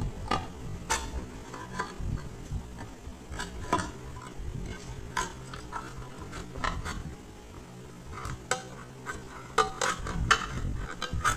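A metal spoon's tip scraping and clicking against a tin can's lid as it is worked around the rim to cut the lid open. The clicks and scrapes come irregularly and are busiest near the end.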